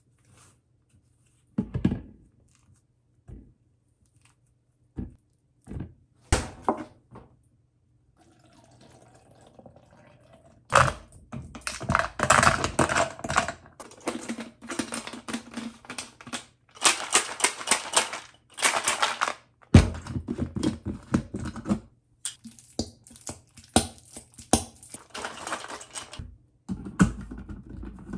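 Kitchen handling sounds around avocado pieces and a plastic blender cup on a countertop. Scattered separate knocks and taps come first; from about eleven seconds in there are long stretches of rapid, dense clattering and rattling with short breaks.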